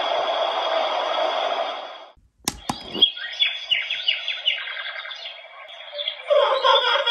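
Small speaker of a cat-shaped children's alarm clock playing its built-in alarm sounds. Its pattern 2 sound, a steady hiss-like texture, stops about two seconds in. Two clicks come as it switches to pattern 3, then a recorded birdsong of quick chirps.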